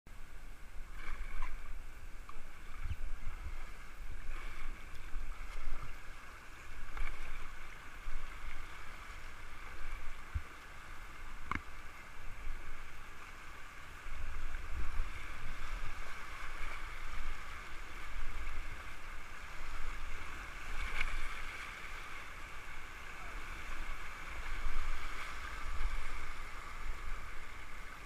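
River water rushing and splashing around an inflatable raft running shallow riffles, with gusty low buffeting of wind on the microphone.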